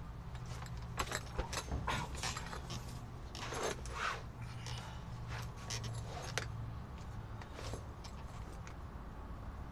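Scattered light clicks and rattles, bunched in the first two-thirds, over a low steady hum.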